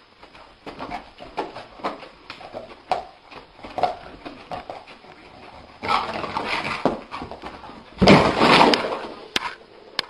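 A sleeping dog whimpering and yipping, a run of short high cries about twice a second. About six seconds in comes a louder noisy stretch as it thrashes awake, and about eight seconds in the loudest, rough burst.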